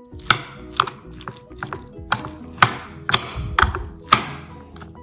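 A metal spoon clinking and scraping against a glass baking dish while a thick, mayonnaise-bound chicken salad is stirred: a series of sharp knocks, roughly every half second, over background music.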